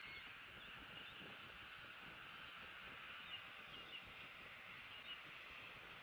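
Near silence: a faint, steady outdoor hiss with a few brief, faint bird chirps from about three seconds in.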